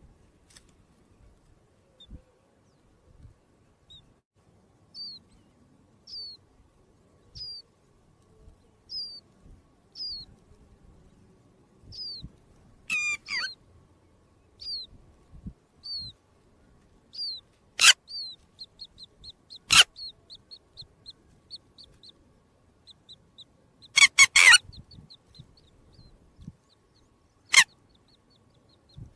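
Chicks peeping: single high, falling peeps about once a second, then a faster run of short peeps. A few loud sharp clicks break in during the faster run.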